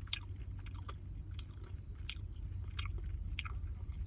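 A person chewing a mouthful of food close to the microphone, with a soft wet click about every two-thirds of a second over a steady low hum.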